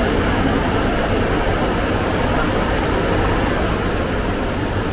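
Heavy rain falling, a steady even hiss with a low rumble underneath.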